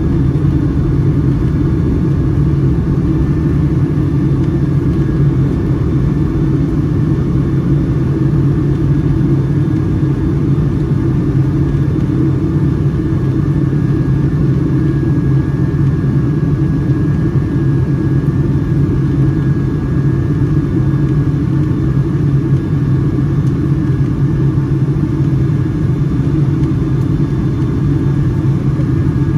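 Boeing 757-200 jet airliner heard from inside the passenger cabin: a steady, even rumble of engine and airflow noise, with a faint steady whine above it.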